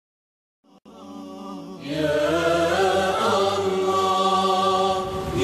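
Start of an Islamic nasheed: chanted singing fades in about a second in over a low drone, then swells to full, choir-like vocals about two seconds in.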